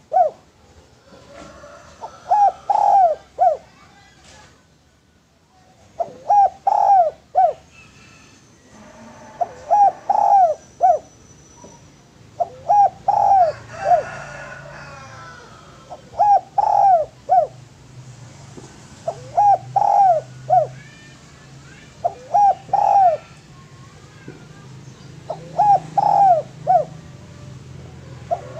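Caged derkuku dove cooing: a short phrase of three or four coo notes, repeated about every three seconds, roughly nine times.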